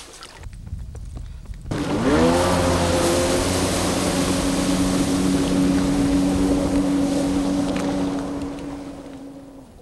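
Jet ski's two-stroke engine revving up, its pitch rising sharply about two seconds in, then running steadily at speed across the water and fading out near the end.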